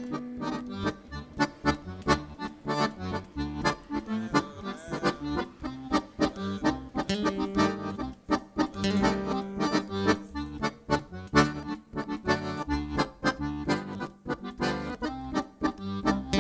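Live choro played on accordion, seven-string guitar and pandeiro, with the accordion to the fore.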